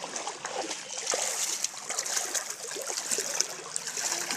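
Feet sloshing and splashing through ankle-deep floodwater, a steady run of small splashes as people wade along a flooded lane.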